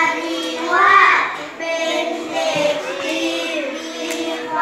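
Children's voices reading a Thai poem aloud together in a sing-song chant.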